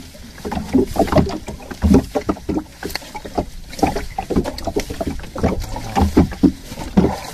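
Irregular knocks and clunks on a small fishing boat, several a second, as things bump against its hull.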